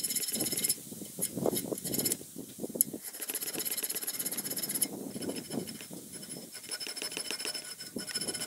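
Small hand file rasping on a rusty steel part clamped in a vise, in repeated short back-and-forth strokes.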